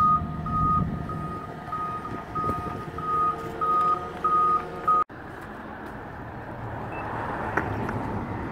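A vehicle's reversing alarm beeping steadily about twice a second, one single tone. It stops abruptly about five seconds in, leaving steady background noise.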